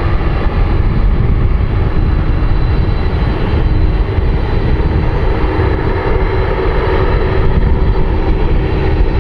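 Jet airliner engines running loud and steady, a dense rush of engine noise with a faint steady whine in it.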